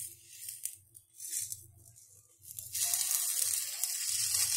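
Besan (gram-flour) omelette frying in a hot pan, sizzling in short bursts at first, then steadily and louder from about three seconds in.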